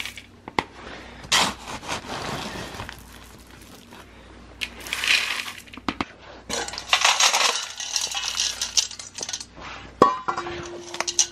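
Whole dried corn kernels being scooped from a plastic bucket and poured into a stainless steel bowl, rattling and clinking against the metal in several separate pours, the longest lasting about three seconds. A sharp click comes near the end.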